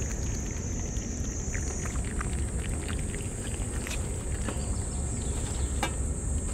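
Stray cats eating wet food from a metal dish, with scattered small clicks of lapping, chewing and paws, over a steady high insect drone and a low background rumble.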